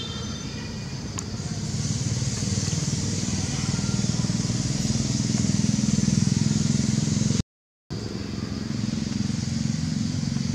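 Low, steady motor-vehicle engine rumble, growing louder over the first few seconds, broken by a half-second gap of silence just past the middle.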